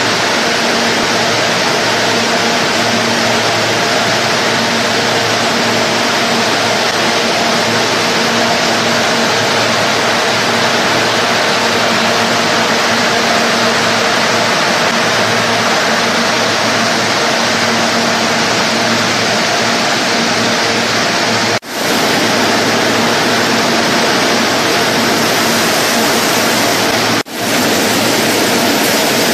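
Steady, loud machinery noise from a food-processing line, motors and conveyors running with a constant hum under a broad rush of noise. It dips briefly twice, about three-quarters of the way through and again near the end.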